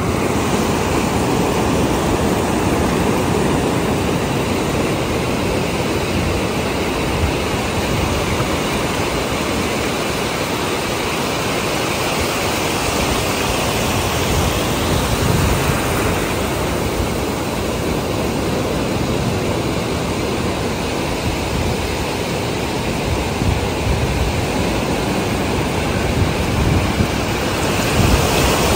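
Ocean surf: small waves washing up and running back over a sandy beach in a steady rush of water.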